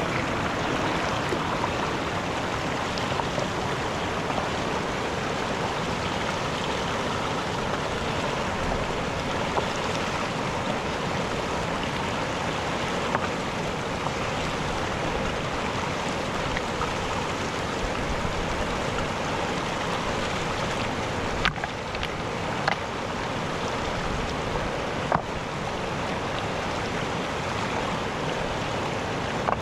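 Mountain river rushing steadily, with a few sharp clicks about three-quarters of the way through.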